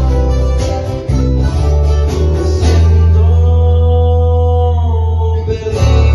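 A band playing a song: acoustic guitars strummed and picked over a deep, steady bass, with rhythmic strokes in the first half giving way to long held notes, then picking up again near the end.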